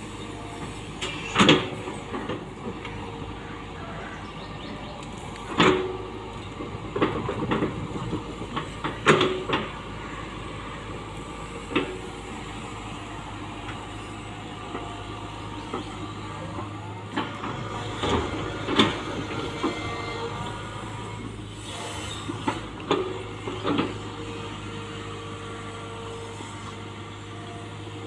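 Tata Hitachi hydraulic excavator's diesel engine running steadily under load, with repeated sharp clanks and scrapes as the bucket digs, drags and levels soil.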